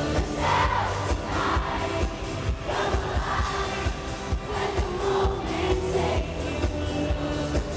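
Live pop concert: a female lead singer sings into a handheld microphone over her band's electric guitar and a steady drum beat.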